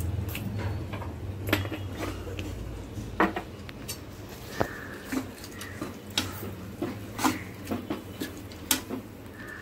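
A steel ladle stirring a thick curry in a steel pan, clinking against the pan's rim and sides at irregular intervals.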